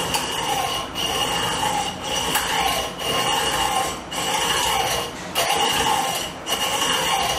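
Hand hacksaw cutting through a rod held in a bench vise: a steady back-and-forth rasp, about one stroke a second, with a thin metallic ring from the blade.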